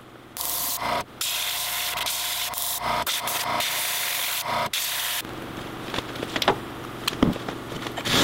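Airbrush from a Central Pneumatic airbrush compressor kit spraying yellow acrylic paint: a steady air hiss that starts about half a second in, breaks off briefly twice and stops about five seconds in, with the small compressor humming underneath. A few light knocks follow near the end.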